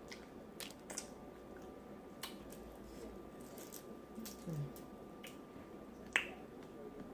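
A person eating a seafood boil close to the microphone: scattered wet smacking and squishing clicks, the loudest about six seconds in, with a brief low hum in the middle.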